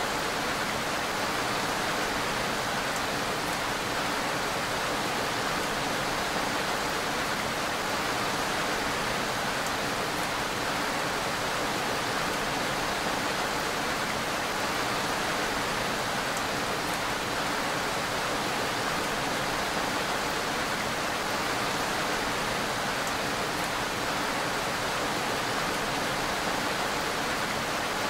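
Steady rain, an even, unbroken hiss.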